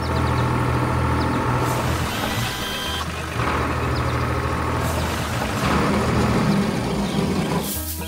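Cartoon vehicle engine sound effect running steadily under background music, with three short hisses.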